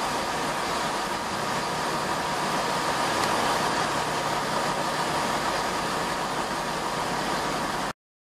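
Class 165 diesel multiple unit pulling slowly into the platform, its diesel engines running steadily with a steady high whine over them. The sound cuts off suddenly near the end.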